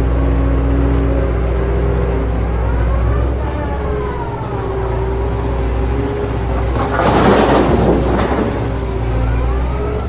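Vehicle engine sound running steadily with faint rising and falling pitch glides, broken by a brief loud noisy rush about seven seconds in.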